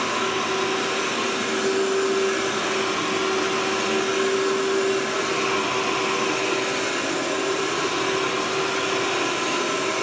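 Workhorse vacuum cleaner running steadily with its brush roll spinning as it is pushed over carpet: a constant rush of air with a steady motor hum.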